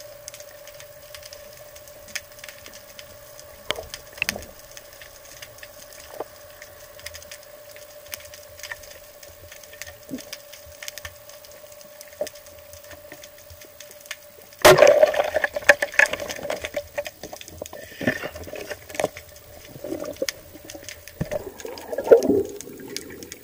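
Underwater sound: a steady hum with faint scattered clicks, then about fifteen seconds in a sudden loud crack followed by churning water and bubble noise in bursts.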